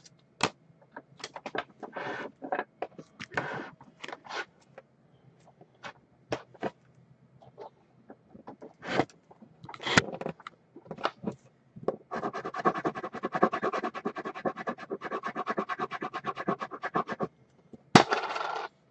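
Objects being handled on a tabletop: scattered clicks, taps and short scrapes, then a fast rattling or scraping run lasting about five seconds, and a sharp click followed by a brief scrape near the end.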